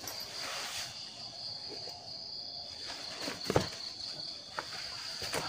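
Evening insect chorus: a steady high-pitched trill from insects. Brief rustles and knocks come about three and a half seconds in and again near the end, as someone shifts about in a hammock tent.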